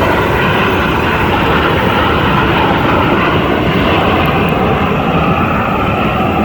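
Loud, steady engine noise from Blue Angels display aircraft flying past.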